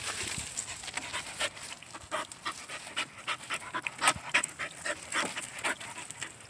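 Puppies panting while they paw and splash in shallow water in a plastic kiddie pool, with many short, irregular splashes and crackles.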